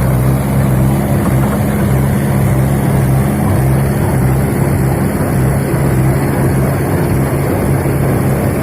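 Tractor engine running at a steady speed, powering a paddy-straw baler.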